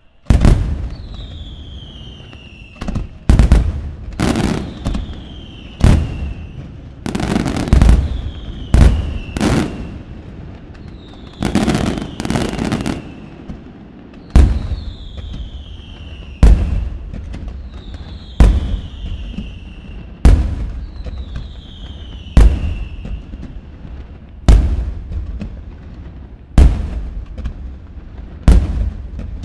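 Aerial firework shells bursting in loud bangs about every two seconds, with a few longer crackling stretches and a falling whistle between many of the bangs.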